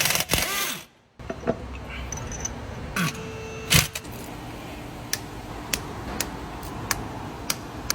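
Scattered sharp metallic clicks and clinks of hand tools and engine parts being handled, spaced irregularly, a few each second or two, over a low workshop background.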